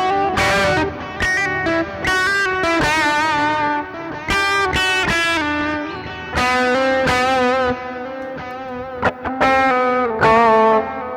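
Electric guitar played through a pedalboard's effects: a run of picked chords and single notes, each with a sharp attack and ringing sustain, with short gaps between phrases.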